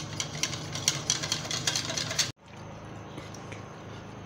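Small whisk clicking rapidly against the sides of a bowl as wheat flour is whisked into water to make a lump-free slurry. It cuts off suddenly about two seconds in, leaving a steady low hum.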